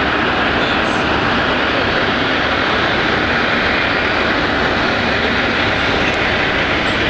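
Steady rushing road and wind noise of a car driving, heard from inside the moving vehicle.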